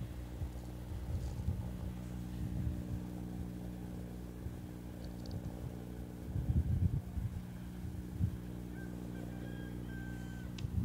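Faint steady low hum and rumble of a freight train behind a VL82M electric locomotive, receding far down the line. Wind buffets the microphone about six and a half seconds in, and a faint high tone sounds near the end.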